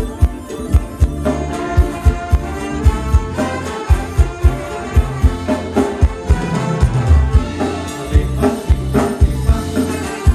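Live Thai dance-band music played loud over a PA: a steady, even drum beat with bass, electric guitars and keyboard.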